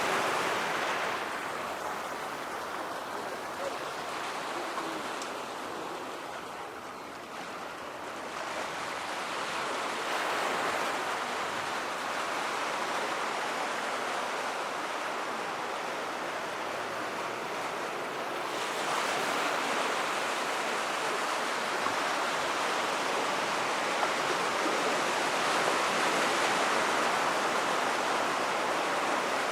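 Surf washing on a sandy beach: a steady rushing noise that swells and eases, with no firework bursts heard.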